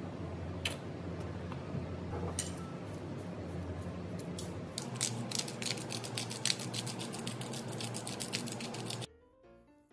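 Pepper grinder being twisted over the food: a rapid, even run of ratcheting clicks for about four seconds, after a few scattered taps. The clicking stops abruptly near the end.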